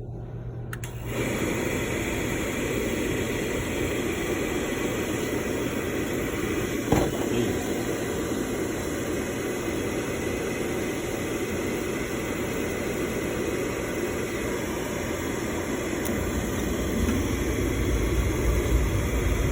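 Oil burner on a boiler lighting off and running: a steady blower-and-flame noise that comes up about a second in, with one short knock partway through. The technician says the unit needs a good cleaning.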